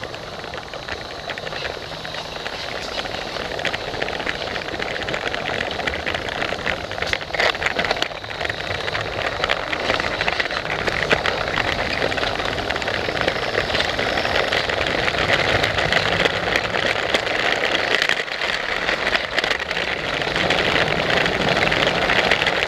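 Lego freight train running on plastic track heard from on board: a steady electric motor whir with many small clicks and rattles from the wheels and track, growing slightly louder over the stretch.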